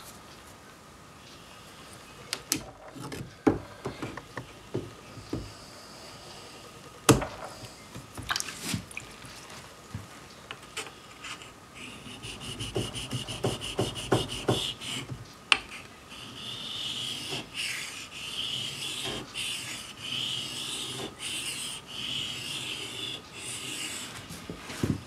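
Stanley 71 router plane cutter being honed on a water stone: handling clicks and knocks of the blade at first, then steady gritty scraping strokes back and forth, about one a second, in the second half.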